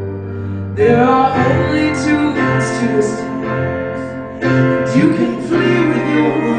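Live ballad: a woman singing over a stage piano with electric guitar accompaniment, a new sung phrase starting about a second in and another past the middle.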